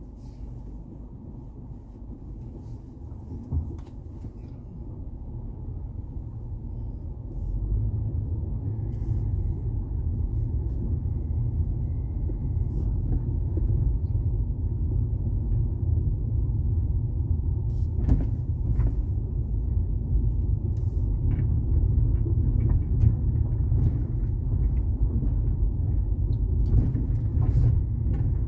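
Low road rumble of a car's tyres and engine heard from inside the cabin, stepping up in loudness about a quarter of the way in as the road turns from pavement to gravel. A few short knocks and rattles come through from the rough surface, the sharpest about two thirds of the way in.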